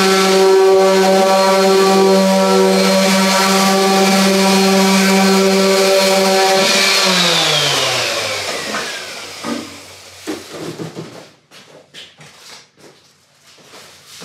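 Random orbital sander running steadily on a plywood board top, then switched off about seven seconds in, its pitch falling as the motor spins down. A few light knocks follow near the end.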